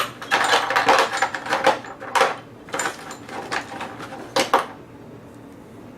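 Small metal tools clicking and clattering as a set of lock plug followers is rummaged through, a dense rattle for about two seconds, then several separate sharp clicks.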